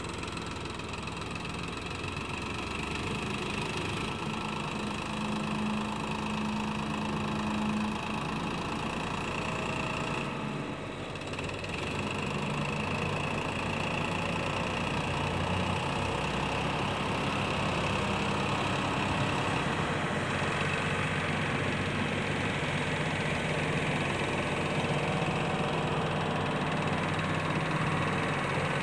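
Sonalika DI 45 RX tractor's diesel engine running steadily while its hydraulics tip up a trolley loaded with soil. The engine note dips briefly about ten seconds in, then runs on a little louder.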